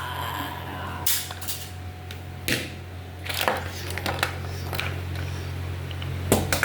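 Toy figures knocking and clattering as they are handled, about half a dozen short sharp knocks at irregular moments, the loudest near the end, over a steady low hum.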